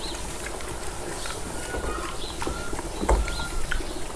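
Young pigs nosing and rustling through straw with a few short high squeaks, and a single knock about three seconds in.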